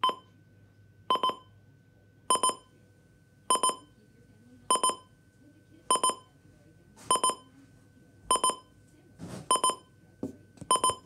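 Midland WR400 weather radio's alarm buzzer going off loudly: short clusters of rapid high beeps repeating about every 1.2 seconds.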